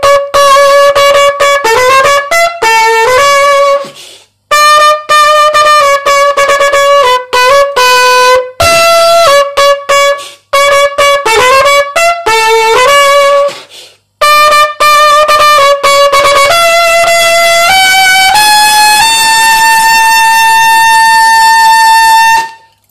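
Unaccompanied silver trumpet playing a Christmas tune, phrase by phrase with short breath gaps. Near the end it climbs in a run of notes to one long held high note, which cuts off just before the end.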